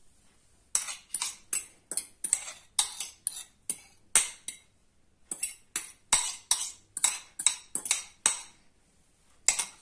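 Metal fork scraping and tapping against the inside of a small bowl in quick strokes, about three a second, with a short pause midway, as beaten egg yolks are scraped out of it.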